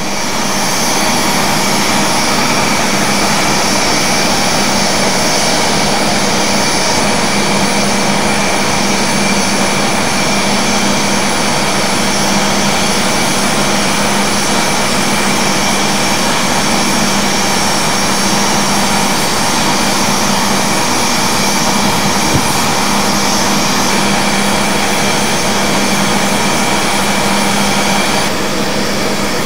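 Diesel engines of a pair of FS D.443 locomotives running at a steady speed, a loud continuous low hum with a hissing whine above it.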